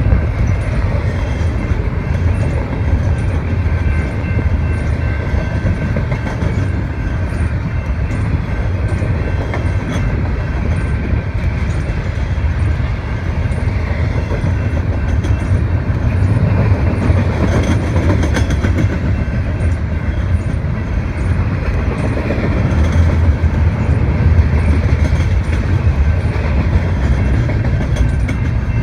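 Double-stack intermodal container train passing close by: a loud, steady rumble of steel wheels rolling on the rails, with faint regular clicks as the wheels cross the rail joints.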